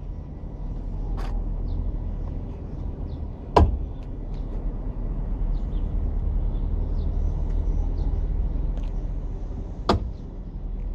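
Factory-fitted swivelling tow bar on a VW Touran unlatching and swinging down with a sharp clunk about a third of the way in, then a second clunk near the end as it is pushed back up and locks into its stowed position. A steady low rumble runs underneath.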